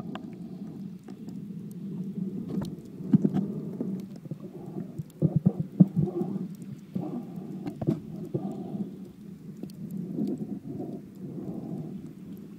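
Underwater noise picked up by an iPhone 4 sealed in a cheap waterproof case: a muffled low sloshing of water moving against the case, swelling and fading unevenly. Scattered sharp clicks run through it, with a cluster of louder knocks about halfway through.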